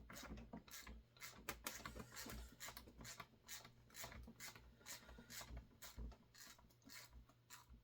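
Faint, quick clicks and scrapes of a hand tool working loose the last screw that holds the cylinder of a Husqvarna 350 chainsaw, several small ticks a second.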